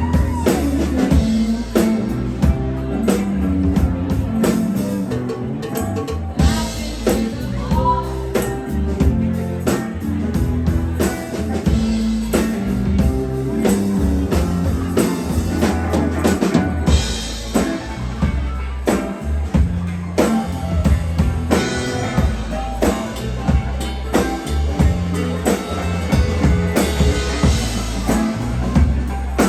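A live rock band playing an instrumental passage: drum kit keeping a steady beat over bass and guitar.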